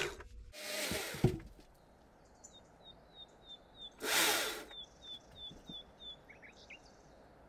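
A Stihl battery chainsaw stops, and a brief whir that falls in pitch ends with a sharp click about a second in. Then a small bird repeats short falling chirps about three a second, broken by a brief rustling whoosh around four seconds in.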